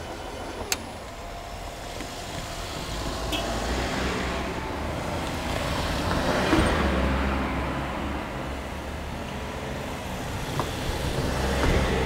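Road cars driving one after another over a railway level crossing, engine and tyre noise swelling and fading as each passes: one about halfway through and a second close by near the end. A sharp click sounds just under a second in.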